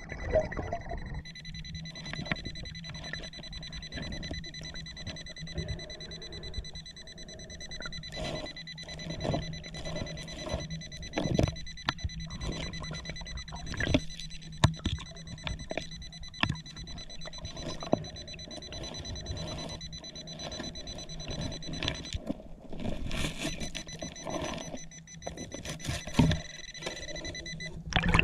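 Underwater metal detector sounding a steady high electronic tone over a metal target, breaking off for a moment near the end, with scattered knocks and scrapes of a hand digging among rocks and silt.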